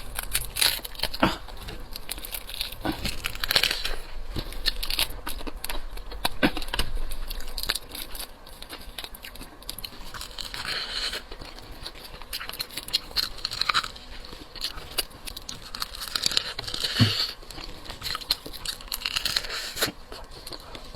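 Hard seafood shell being snapped and pulled apart by hand, with irregular crackling, cracking and tearing sounds, to get at the roe inside.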